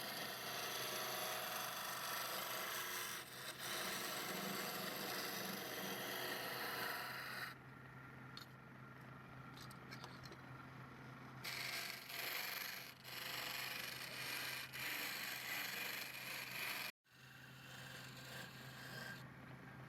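Wood being cut or scraped with a hand tool on a running wood lathe, a rough rubbing, scraping noise over a steady motor hum. The cutting eases off about seven seconds in, returns strongly around twelve seconds, and breaks off abruptly near the end.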